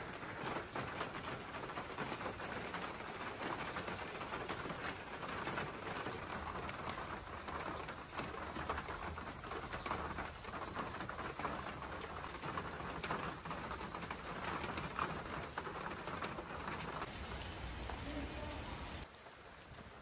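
Steady rain falling on surfaces, an even hiss of many close drops. It drops away sharply near the end.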